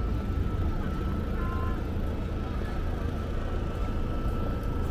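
Steady urban traffic ambience: a continuous low rumble of passing road traffic.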